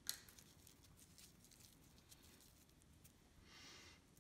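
Near silence: room tone, with a faint click at the start and a soft rustle near the end.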